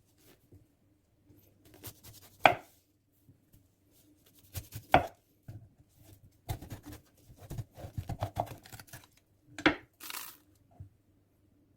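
Kitchen knife striking a cutting board in irregular knocks, with a quicker run of chopping strokes in the middle and a short rustle near the end.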